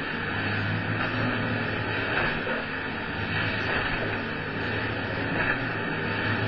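Boat outboard motors, 500 hp in all, running steadily under load, with the rush and splash of rough water against the hull.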